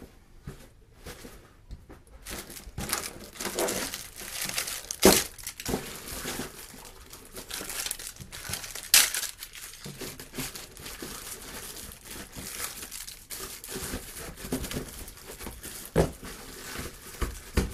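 Crinkling and rustling of bags and packaging as electrical wall plates and switches are sorted by hand, with two sharp clacks about five and nine seconds in.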